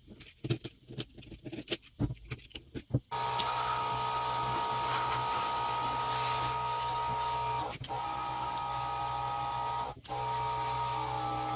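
A few clicks and knocks of handling, then an electric power tool starts about three seconds in and runs steadily with a hum and a high whine. It cuts out briefly twice and drops slightly in pitch near the end.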